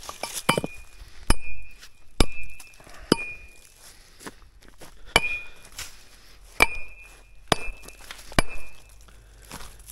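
Metal tool striking rock in about nine sharp blows, roughly one a second, with a pause midway; most blows leave a brief high metallic ring.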